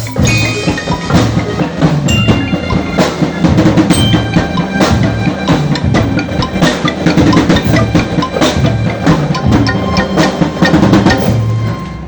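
Drum band playing: bass drums and snare drums with bell-like glockenspiel tones over a steady beat, fading out near the end.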